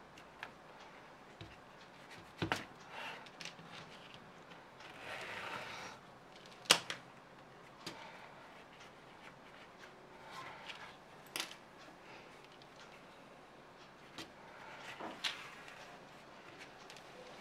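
Faint workbench handling sounds: scattered light clicks and knocks of tools and pieces being picked up and set down, with short stretches of scraping or rustling. The sharpest knock comes about seven seconds in.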